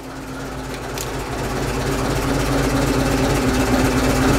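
Vintage Dodge car engine running steadily at idle, growing gradually louder. It has just been restarted on old fuel after standing unused for a long time, and its owner reckons it doesn't sound too bad.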